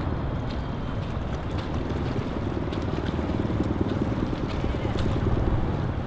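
Wind buffeting the camera microphone outdoors: a steady, fluttering low rumble.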